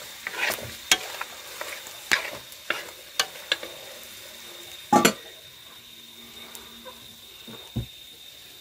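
A metal spoon stirring and scraping meat frying in a cast-iron pot, clicking against the pot over a low sizzle. The stirring clatters for the first few seconds; about five seconds in there is one loud knock, and after that only the sizzle and a few faint ticks.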